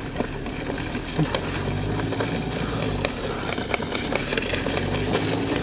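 A towing vehicle's engine running with a steady low hum whose pitch slowly rises, under a constant crackling of a child's trike's small wheels rolling and sliding over packed snow.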